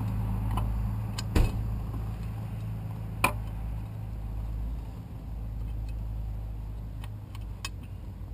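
A steady low hum from a running engine, easing slightly after the middle. A loud knock comes about a second and a half in, a sharp click about three seconds in, and a few faint ticks follow.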